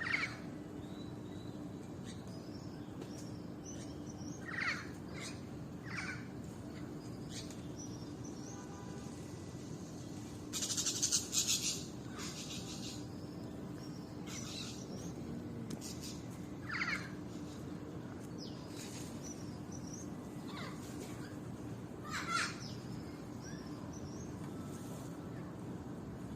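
Wild birds calling: short chirps scattered a few seconds apart, and one loud, harsh, raspy call lasting over a second about eleven seconds in. A steady low hum runs underneath.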